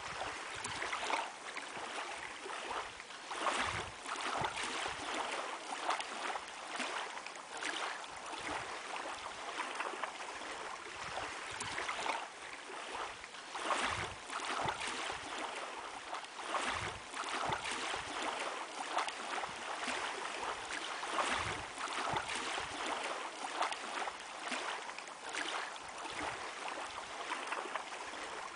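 Water lapping and splashing in a steady, uneven wash of small surges, like small waves breaking at a shore.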